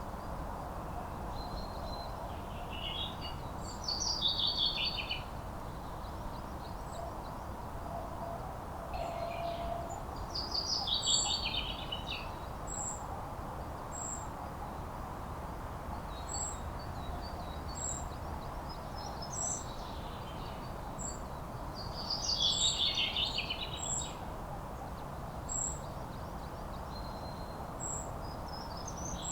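Wild birds singing: a loud, busy song phrase that falls in pitch comes three times, while from about a third of the way in another bird repeats a thin high note about once a second. Under them runs a steady low background noise.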